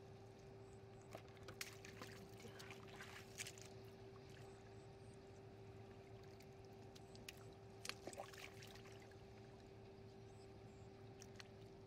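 Faint splashing and sloshing of shallow muddy water as a small woven basket is scooped through it, in two short spells, one a second or two in and another about eight seconds in. A steady faint hum runs underneath.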